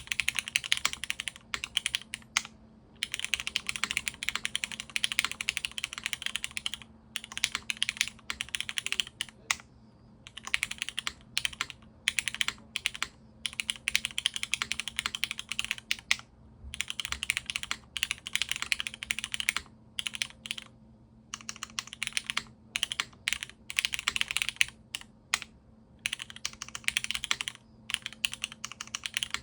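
Typing on a Dolphin 2024 custom mechanical keyboard with an O-ring-mounted full aluminium plate, GMK keycaps and linear Cherry MX Black switches polished with diamond paste. Keystrokes come in fast runs a few seconds long, separated by short pauses.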